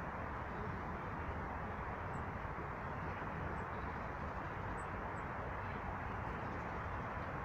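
Steady outdoor background rumble with no distinct events, with four short, faint high bird chirps scattered through it.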